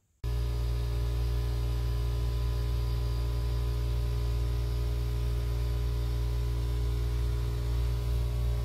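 A steady low hum with a hiss over it, starting abruptly just after the start and holding level throughout.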